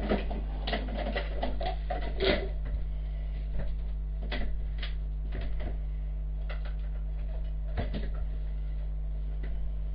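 Scattered knocks and clinks of kitchen utensils and containers being handled on a counter, a dozen or so short hits spread unevenly, over a steady low electrical hum.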